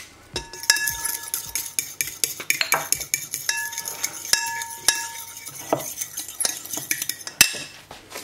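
A metal spoon stirring a thick soy-yogurt and tomato dressing in a white bowl, scraping and clinking against the sides, the bowl ringing briefly after some of the knocks. A sharper, louder knock comes near the end.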